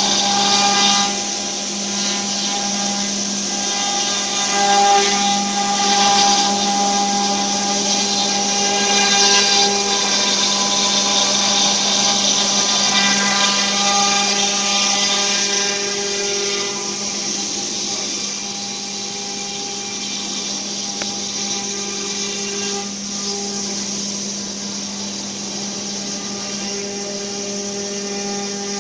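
ATC CNC router spindle running steadily with a high whine while its bit cuts a raised panel into a wooden board. It is somewhat quieter after about seventeen seconds.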